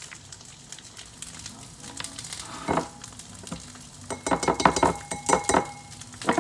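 Tofu and vegetables sizzling in olive oil in a frying pan, with a short rustle about three seconds in. Over the last two seconds comes a run of clinks and knocks: a quarter-cup measure scraping and tapping cooked lentils into a bowl, with a brief ring from the dish.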